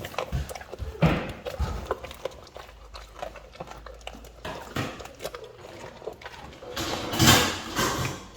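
Cane Corso dog chewing and crunching a whole tilapia fish: irregular wet chomps and clicks of bone, with a louder spell of chewing about seven seconds in.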